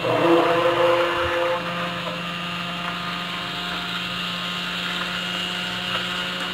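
Electric immersion hand blender running steadily in a steel bowl, churning yogurt, gram flour and water into a smooth, lump-free batter. It is louder for the first second or so, then settles into an even whirring hum.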